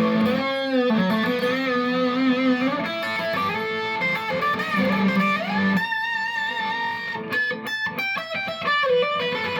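Electric guitar through a Fender Bassbreaker 30R amp on its high-gain lead channel with the gain turned up. It plays single-note lead lines: sustained notes with wavering vibrato and bends, then a run of quick, short notes about seven seconds in.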